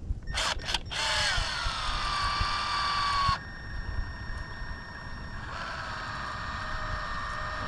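Small electric power tool motor: two brief blips, then a run of about two and a half seconds whose pitch drops and then holds steady before cutting off sharply. A second, quieter run starts past the middle and keeps going.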